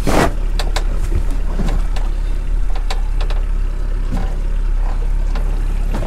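Honda outboard motors idling: a steady low rumble, with a rush of noise right at the start and a few light clicks and knocks.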